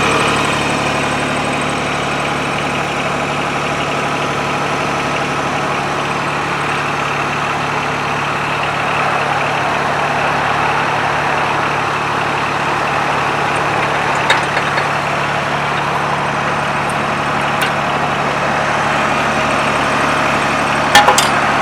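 Branson 2205H compact tractor's diesel engine running steadily at idle. A few short metallic clicks or knocks come in the second half, the last and loudest near the end.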